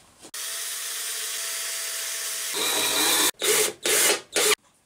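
Cordless drill driving a screw into MDF. The motor runs steadily, gets louder about two and a half seconds in as the screw goes in, then gives three short bursts near the end to seat it.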